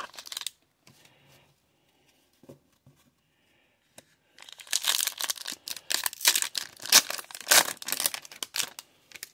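O-Pee-Chee hockey card pack's foil wrapper being torn open and crinkled: a short rustle at the start, then from about halfway through some four seconds of dense crackling.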